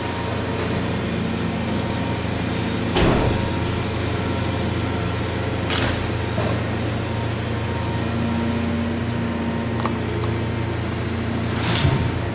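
Heavy demolition machine's engine running steadily, with three sharp crashes or knocks of wall debris: a few seconds in, again around halfway, and near the end.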